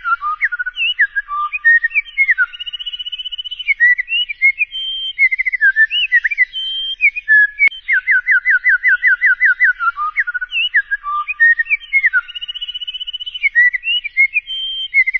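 A songbird singing clear whistled notes: a fast run of downslurred notes, then warbling phrases and higher held whistles. The same sequence repeats almost exactly about every ten seconds, with a brief click where it restarts, as a looped recording of the song does.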